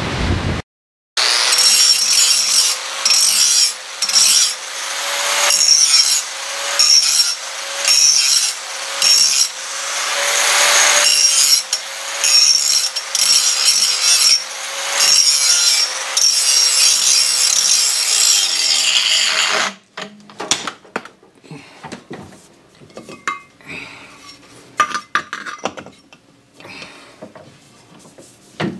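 Electric angle grinder working a corroded metal part clamped in a vise, in repeated rough passes about a second apart over the motor's steady whine. The motor winds down and stops a little before the 20-second mark, followed by light clatter of the grinder and part being handled. A brief gust of wind noise on the microphone comes right at the start.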